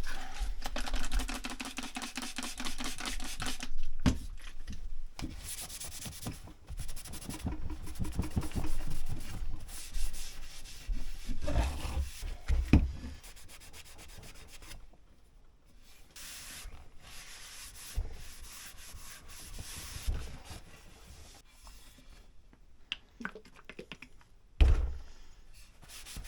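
Hand-sanding the clear lacquer off a new hickory axe handle: runs of quick, rhythmic rubbing strokes with short pauses. A few knocks of the handle come in between, the loudest a single thump near the end.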